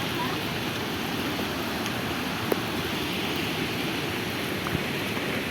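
Waterfall pouring, a steady rushing noise of falling water, with one short tap about two and a half seconds in.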